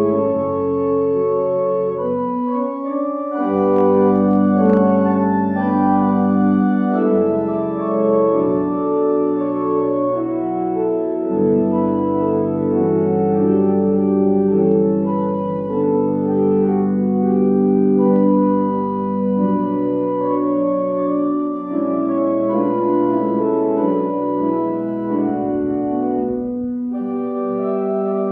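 Organ playing a slow prelude of held, sustained chords, with deep bass notes that drop out now and then.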